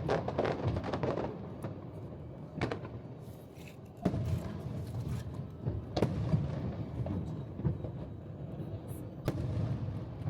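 Aerial firework shells bursting: dense crackling in the first second or so, then four separate booms a second or more apart, each trailing off.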